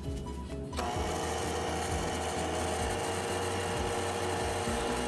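Electric hand mixer switched on about a second in, then running steadily, its wire beaters churning butter, sugar and flour in a bowl.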